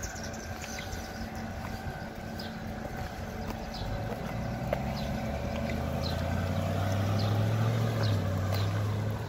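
Street sound: a motor vehicle's low engine hum builds from about four seconds in and is loudest near the end, while small birds chirp in short high notes throughout.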